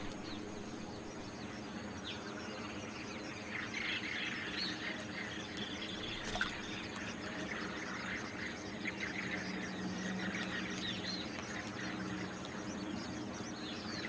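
Many birds calling at once in a wetland, a scatter of short high chirps and small rising notes, over a steady background of outdoor noise with a low hum.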